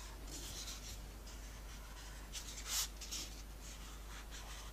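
Soft scraping and rubbing of a small plastic tool drawn along modelling paste on a mat, in short strokes, with one louder scrape a little past the middle.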